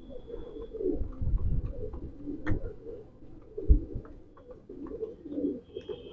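A flock of fancy pigeons, Masakali among them, cooing, with scattered short clicks of beaks pecking grain from a plastic feeder. There are two low thumps, about a second in and near the middle.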